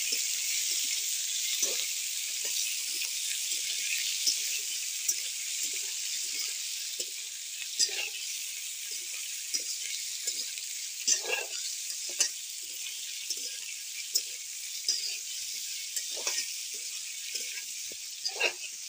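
Chicken pieces sizzling in hot oil in a wok, with a steady hiss, while a spatula stirs and scrapes them in short strokes about once or twice a second.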